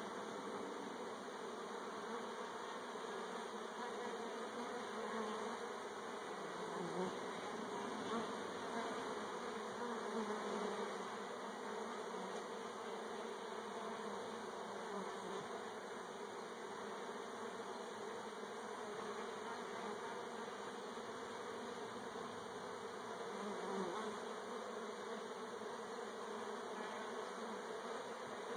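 Many honey bees buzzing in flight around an opened hive with exposed comb: a steady, wavering hum that swells briefly a few times.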